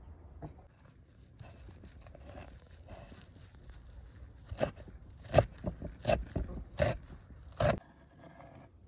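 Soft rustling and scraping, then about six sharp, uneven knocks over some three seconds, the loudest a little past the middle.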